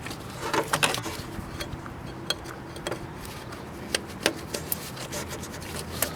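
Rubber coolant hoses being worked back onto a thermostat housing: rubbing and scraping, with scattered light clicks and taps.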